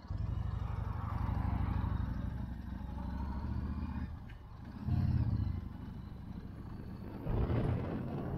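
Motorcycle engine running with a low, pulsing rumble that comes in suddenly. It swells with throttle about five seconds in and again near the end.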